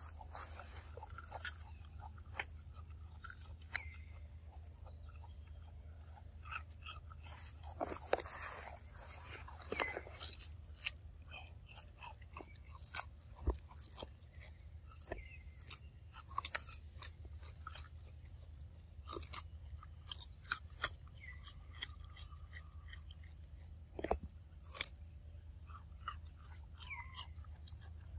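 Macaque biting and chewing crunchy green fruit close up: irregular crunches and clicks of chewing.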